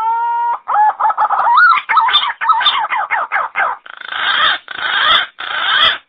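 Green pigeon calling: a rising whistle runs into a string of wavering, warbling whistled notes, then three harsh, noisy notes near the end that stop abruptly.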